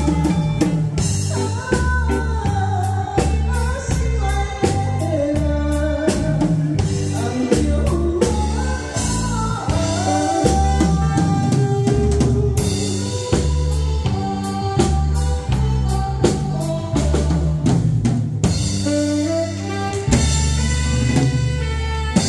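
A woman singing a Taiwanese enka-style song over band accompaniment, with a steady drum-kit beat and bass under a gliding melody.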